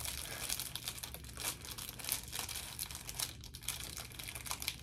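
Plastic packaging being crinkled and torn open by hand: an irregular run of rustling crackles.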